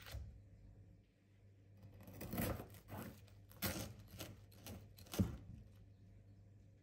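Kitchen knife sawing through a slice of toasted bread topped with baked cheese on a wooden cutting board: several rasping strokes through the crust, ending in a sharp knock of the blade on the board about five seconds in. A short knock at the start as the toast is set down on the board.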